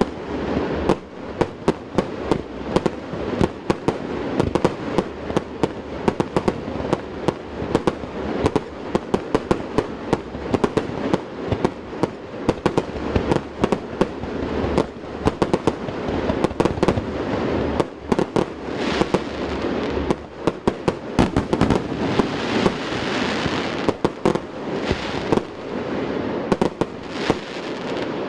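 Starmine fireworks barrage: a rapid, unbroken run of bangs from shells launching and bursting, several a second, over a constant rumble, with stretches of hissing in the second half.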